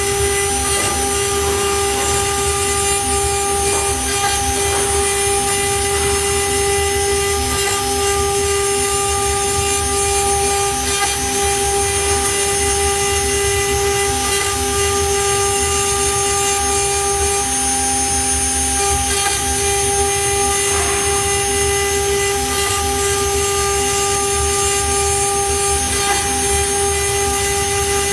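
CNC wood router running at steady speed, its spindle giving a constant whine while the small carving bit cuts a groove into a wooden board.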